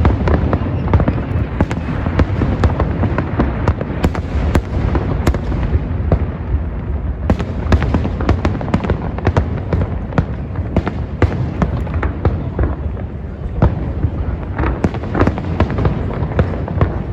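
Fireworks display: a dense, continuous barrage of shell bursts and crackling, with many sharp cracks over a low rumble.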